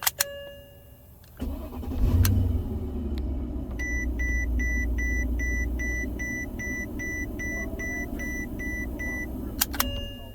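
A 2012 Mercedes-Benz S550's V8 started with a newly programmed key on a used ignition switch: a click of the switch, then about a second and a half in it cranks briefly, catches and settles into an idle. The start shows the key and switch are working. A dashboard warning chime beeps steadily about three times a second through the middle, and further clicks come near the end as the engine sound drops.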